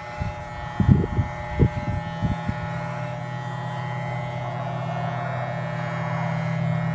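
Corded electric hair clippers buzzing steadily as they shave a goat's coat, the buzz growing gradually louder. A few short knocks in the first two and a half seconds.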